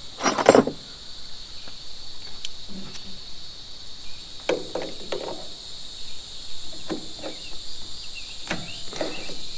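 Hand tools knocking and scraping against a tight spin-on oil filter on the sawmill's engine as it is wrenched loose: a sharp clank about half a second in, then scattered short knocks and scrapes. A steady high insect drone runs underneath.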